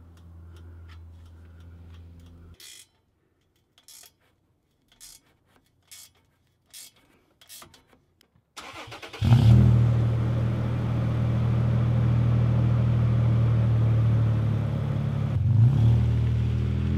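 A few light taps, then the engine of a 2011 Toyota Tacoma fitted with a CGS cat-back exhaust starts about nine seconds in and settles into a steady idle through the new exhaust, with a brief blip about two-thirds of the way through.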